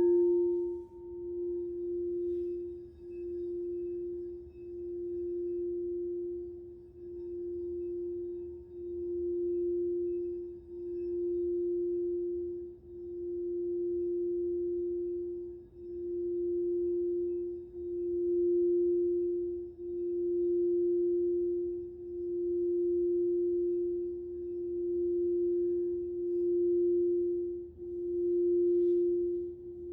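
Crystal singing bowl sounding one pure, low, steady tone. It starts with a strike, then is kept ringing, swelling and fading evenly about every two seconds, as when a mallet is circled around the rim.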